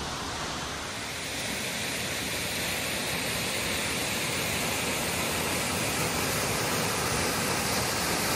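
Steady rushing of a waterfall and the stream below it, growing slightly louder after the first second or so.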